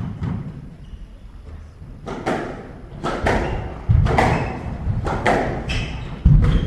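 Squash rally: the ball cracks off rackets and the court walls in a string of sharp hits from about two seconds in, with two heavier thuds near four and six seconds.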